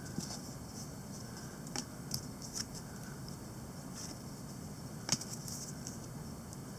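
Trading cards being flipped through by hand, giving a string of short, crisp clicks and snaps at uneven intervals, the loudest about five seconds in.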